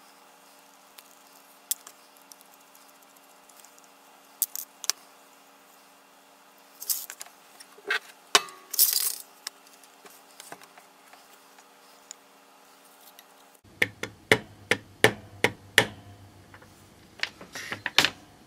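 Sharp metallic clicks and taps of a small sterling silver petrol lighter and its parts being handled and worked on with hand tools: scattered clicks at first, a louder clatter a little after halfway, then a quick run of taps, about three or four a second, once the lighter is clamped in a bench vise.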